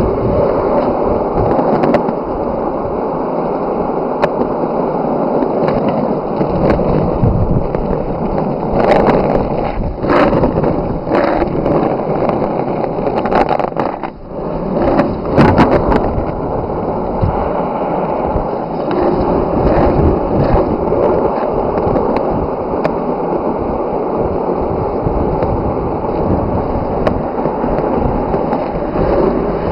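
Skateboard wheels rolling on a road surface, a loud, steady rumble. Sharp knocks and clacks from bumps in the surface come in a cluster around the middle, with a brief lull among them.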